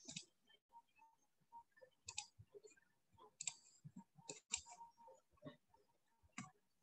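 Near silence broken by faint, irregular clicks and taps.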